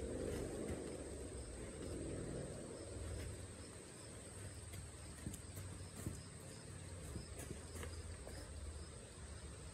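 Outdoor summer ambience: insects chirping in a faint, even rhythm over a steady high tone and a low rumble, with a few faint knocks about halfway through.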